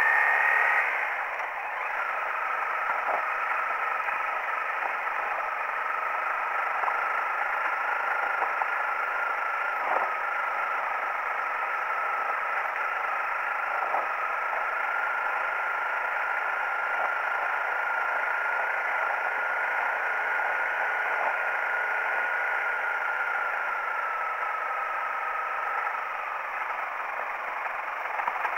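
Honda CRF 250L's single-cylinder engine running at a steady speed along a bumpy dirt track, after a brief rising rev right at the start. A couple of sharp knocks from the bike hitting bumps come partway through, and the engine eases off near the end.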